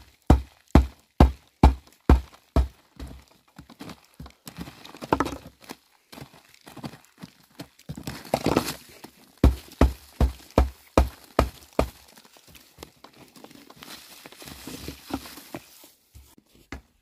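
Steady chopping with a knife or cleaver on a wooden board, heavy knocks about two a second, in two runs with a pause and some shuffling noise between them.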